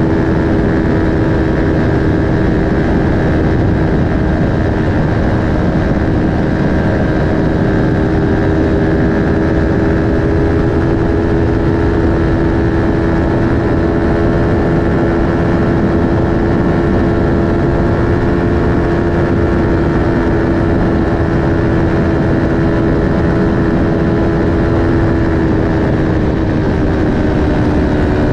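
Aprilia Tuono V4 1100 RR's V4 engine, breathing through an Akrapovic slip-on exhaust, running at a steady high cruising speed with wind rush behind it. The engine note holds level and eases down slightly near the end.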